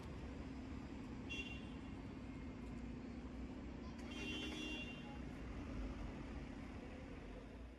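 Steady city traffic noise, a low rumble with a constant hum, with two brief high-pitched sounds about a second and a half in and again about four seconds in.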